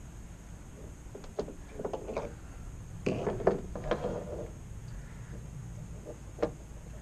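Small clicks and taps of a small Phillips screwdriver and the metal body of an LED headlight bulb being handled as screws are worked out of the bulb's collar, with a short burst of clattering and rustling about three seconds in and one last sharp click near the end. A steady low rumble of wind lies underneath.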